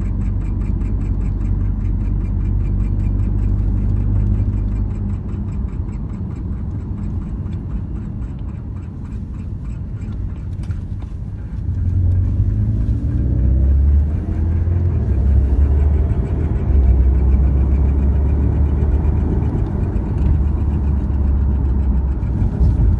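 Porsche 718 Cayman GTS 2.5-litre turbocharged flat-four engine running, with a rapid, even ticking noise from a pulley at the front of the engine whose cause the owner doesn't know. About halfway through, the engine note rises and grows louder.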